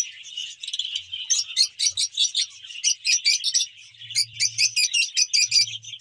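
Flock of lovebirds chattering: a steady stream of sharp, high chirps, several a second.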